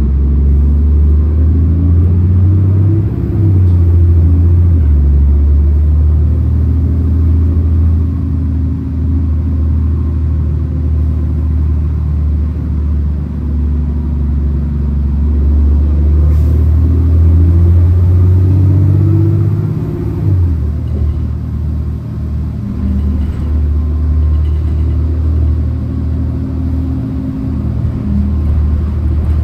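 Orion VII city bus under way, its engine running with a loud, low drone. The pitch shifts about three seconds in and drops again about twenty seconds in as the bus changes speed.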